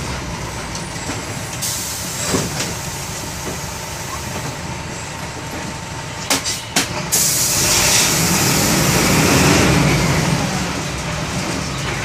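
Minibus's MWM 4.12 TCE four-cylinder diesel running steadily. A hiss comes about two seconds in and lasts a couple of seconds, two sharp clicks follow around six seconds, and then the engine grows louder and its note rises, as when pulling away under throttle.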